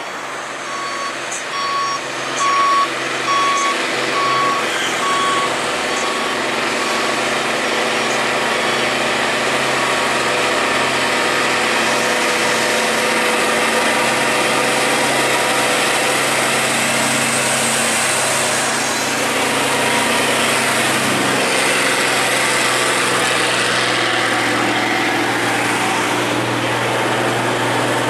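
Heavy diesel trucks moving slowly along a hill climb, engines running steadily. A high electronic warning beeper sounds about twice a second for the first several seconds, then stops.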